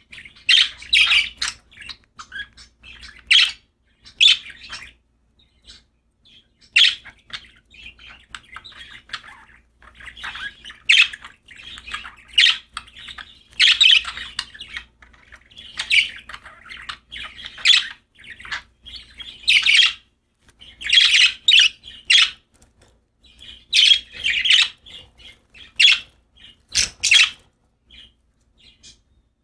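Pet budgerigars chirping in short, irregular bursts, with a pause of a second or so about five seconds in and another near the end.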